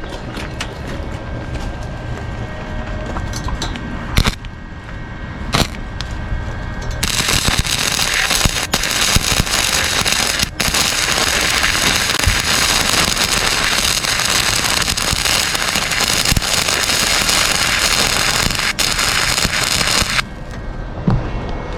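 Small electric welder arcing on an exhaust pipe: two brief crackling bursts a few seconds in, then a steady crackling weld bead for about thirteen seconds that cuts off near the end.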